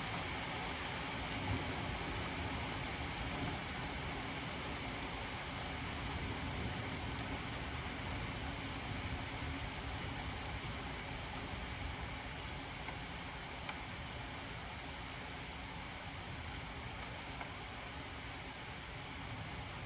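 Heavy downpour of rain, a steady hiss that eases slightly toward the end.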